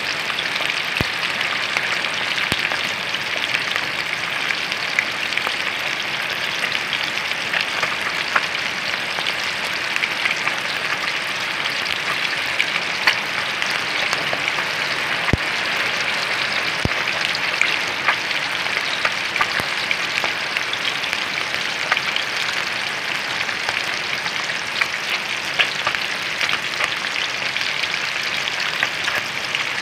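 Whole moonfish shallow-frying in oil in a wok: a steady sizzle dotted with many small crackling pops.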